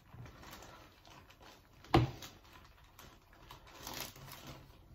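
Thin lumpia (spring roll) wrappers rustling and crinkling as they are peeled apart by hand, with light ticks and taps on the table, and one sharp knock about two seconds in.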